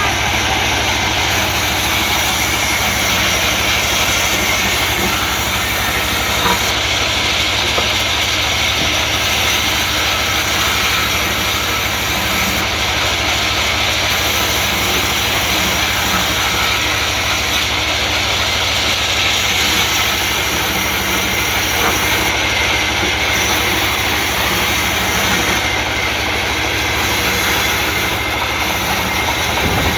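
Sawmill machinery running steadily: a constant motor hum under a dense, even mechanical noise that does not change.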